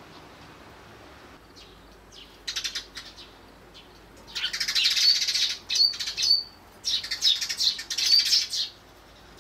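Eurasian tree sparrows, young ones among them, chirping in quick, dense runs: a short run about two and a half seconds in, then two long loud runs, with wings fluttering.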